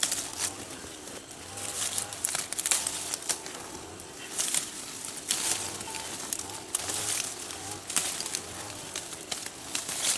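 Citrus tree leaves and twigs rustling and crackling in irregular bursts, with the sound coming in short clusters, as branches are handled while oranges are picked by hand.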